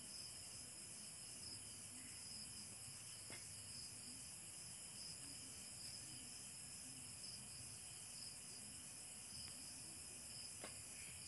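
Faint, steady chirring of crickets, with a couple of soft clicks.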